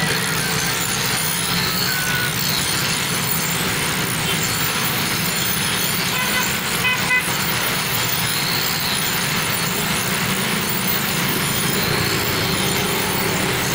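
Steel knife blade held against a pedal-driven bicycle grinding wheel, a steady grinding hiss that swells and eases every few seconds. A vehicle horn toots briefly about halfway through.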